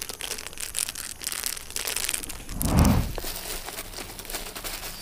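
Hands stirring a heap of small paper-tube firecrackers in a toilet pan, the tubes clattering and rustling against each other in dense little clicks. A brief low rumble comes in about two and a half seconds in.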